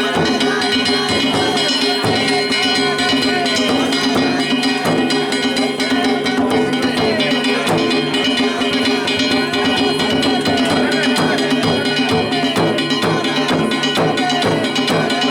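Danjiri-bayashi festival music: taiko drums and small hand gongs beating a rapid, steady rhythm over a sustained tone.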